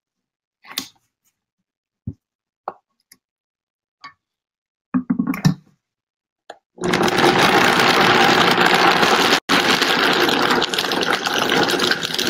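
Countertop blender: a few knocks and clicks as the lid is set and the jar handled, then about seven seconds in the motor starts and runs loud and steady, blending cashews, mustard and water into a smooth dressing. The sound breaks off for an instant about two and a half seconds after it starts.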